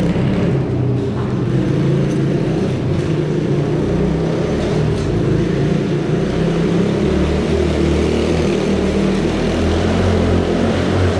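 Small pit bike engine running at steady revs while the bike is ridden in third gear.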